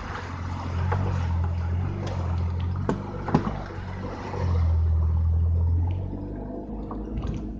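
Jeep engine pulling under throttle as it drives through muddy puddles on a trail, its low drone swelling twice. A couple of sharp knocks come about three seconds in, with water splashing.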